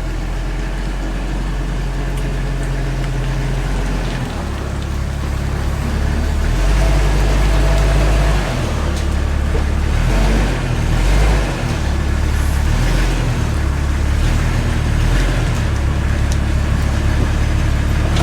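A vehicle engine running under load, its low rumble rising and falling in pitch, as it pushes a dead, non-running SUV along.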